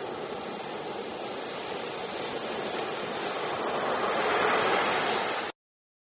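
Ocean surf washing onto a beach: a steady rush of breaking waves that swells louder about four seconds in, then cuts off abruptly near the end.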